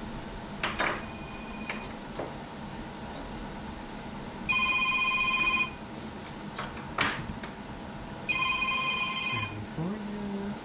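Shop telephone ringing twice, each electronic ring lasting a little over a second, over a low steady hum with a few light clicks.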